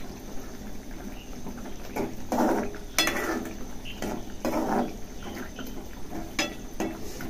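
Metal spoon scraping and clinking against a steel pan as curry is stirred. There are a few sharp metal clinks, one about three seconds in and two close together near the end.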